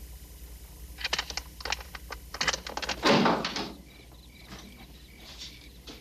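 A door being opened: a quick run of clicks and rattles, then a louder thump about three seconds in.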